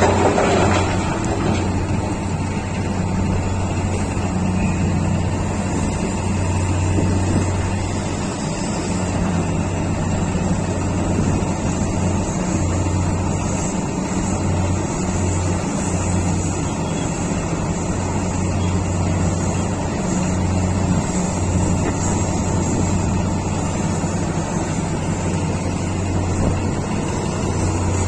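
Heavy diesel engines of a Komatsu PC1800 hydraulic excavator and a Caterpillar 777D mining haul truck running steadily, the low engine note swelling and easing as the excavator works. Right at the start, a short rush of rock spilling from the bucket into the truck's bed.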